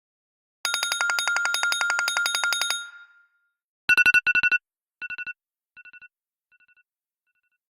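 An iPad ringtone playing. A rapidly pulsing electronic tone lasts about two seconds, then a quick run of three high beeps repeats several times, each time fainter, like an echo dying away.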